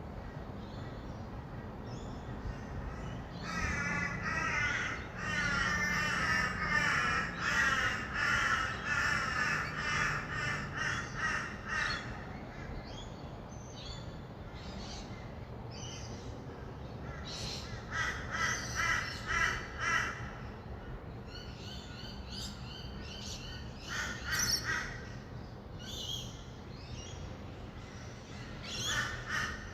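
Rainbow lorikeets' harsh, rapid screeching chatter: a long flurry from a few seconds in to about twelve seconds, then shorter bursts later on. A steady hum of distant traffic lies underneath.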